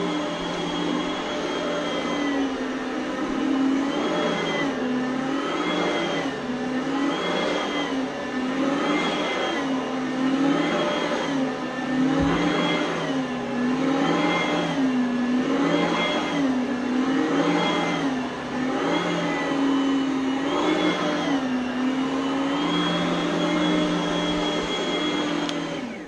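Oreck Elevate Conquer upright vacuum cleaner running, its motor whine dipping and recovering in pitch about every second and a half as it is pushed back and forth. The motor cuts off at the very end.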